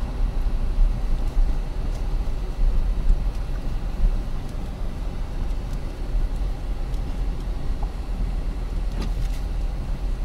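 Jeep's engine and road noise heard from inside the cabin, a steady low rumble while creeping along in slow traffic.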